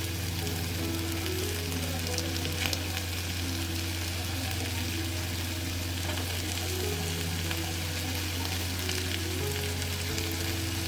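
Food sizzling and bubbling in a pot of ham gochujang stew: a steady hiss with small crackles, over a constant low hum.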